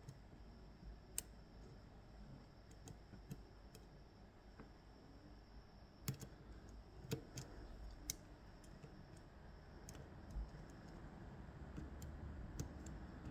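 Scattered small sharp clicks and taps of tools working on an Ezcurra DS-10 lock, a dozen or so spread irregularly, the loudest about a second in and around six to eight seconds in.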